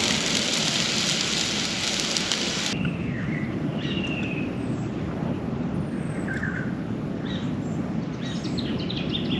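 A loud, steady hiss stops abruptly about three seconds in. It gives way to a lower outdoor rumble with several short bird chirps scattered through it.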